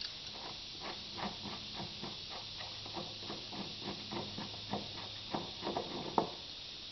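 Metal clicking and scraping in short irregular strokes, about three or four a second, as a pipe thread is worked by hand into the steel side of a 55-gallon drum. A faint low hum runs underneath and stops about five and a half seconds in.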